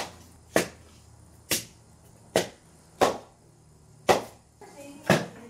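Axe chopping firewood by hand: seven sharp blows into a log, a little under a second apart.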